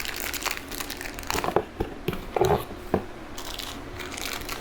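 Plastic packaging crinkling as small items are handled, with a few light knocks in the middle.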